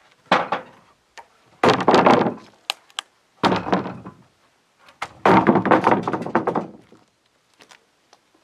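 Four heavy thunks, a second or two apart, each trailing off quickly: heavy cedar timber being knocked and shifted on the sawmill.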